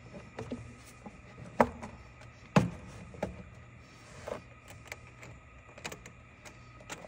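Scattered clicks and knocks of hands seating an air-intake tube and its worn hose clamp onto a truck engine's throttle body. Two sharper knocks come about one and a half and two and a half seconds in.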